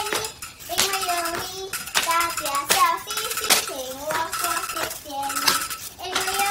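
Young girls singing a song in Mandarin, in short phrases, with several sharp clicks and clatters among the singing.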